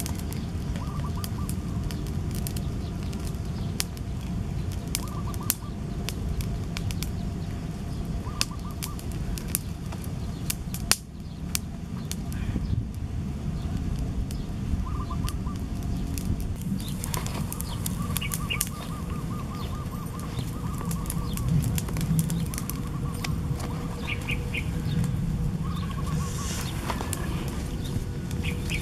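Outdoor field ambience: a steady low rumble with birds calling in short repeated chirping trills, one longer trill about two-thirds of the way through. Scattered sharp clicks and crackles throughout, with one louder knock about eleven seconds in.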